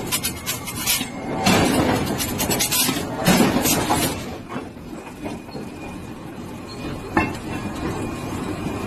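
Forge noise around a red-hot forged railway wheel blank. In the first half there are bursts of hissing as smoke and dust blow off the hot steel. Then comes a steadier low rumble with one sharp knock about seven seconds in.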